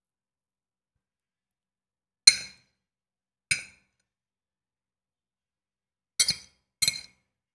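Four sharp clinks of a hard object being struck, each ringing briefly: one about two seconds in, another just over a second later, then two more close together near the end, each of these a quick double strike.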